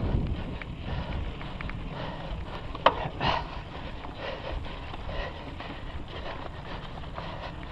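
Mountain bike rolling fast down a dry dirt and loose-rock trail: tyres crunching and skittering over gravel, with small rattles and clicks from the bike. There is a sharp knock about three seconds in. Wind on the microphone is heavy at first and fades within the first second.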